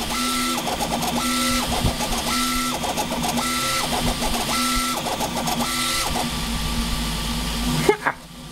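CoreXY 3D printer's stepper motors driving the print head back and forth at high speed. There are six passes about a second apart, each a whine that rises in pitch as the head speeds up, holds, then falls as it slows, over a steady hum. Just before the end comes a brief rising sweep, and the sound drops.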